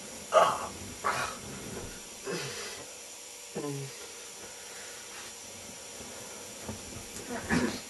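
A man's wordless vocal noises: a string of short, breathy groans and grunts, the loudest about half a second and a second in, a few more spread through, and another pair near the end.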